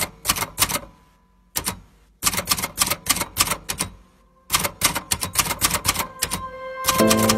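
Typewriter keystroke sound effect: runs of sharp, quick clacks with short pauses between them. Music comes in near the end.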